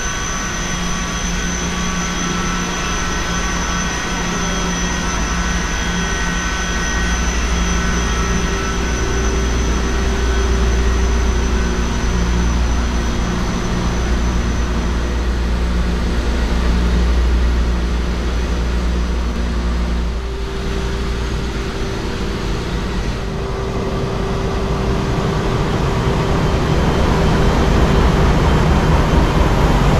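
Loud, steady drone of a cruise ship's engine-room machinery: a deep hum with several steady whining tones over it. The mix of tones shifts about twenty seconds in and grows a little louder near the end.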